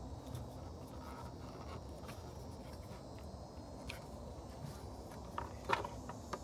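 Low, steady background rumble with faint scattered clicks, then a few sharper light clicks about five and a half seconds in.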